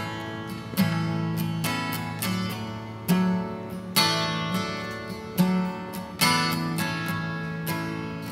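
Steel-string dreadnought acoustic guitar playing a solo instrumental intro: chords struck at a steady, unhurried pace, about one every second, each ringing into the next.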